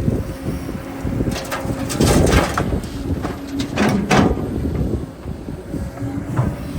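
Excavator at work: its engine running under a steady low rumble, broken by several scraping, clanking strokes of the bucket or tracks.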